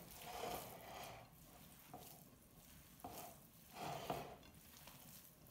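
Bare hands kneading and squishing raw ground beef and pork meatball mixture in a bowl: faint, soft wet squelches, a few irregular ones about a second apart.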